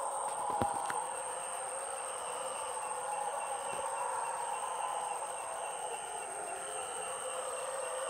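Forest ambience of an insect chorus: a steady high buzz and several lower steady trills running without break, with a faint click about half a second in.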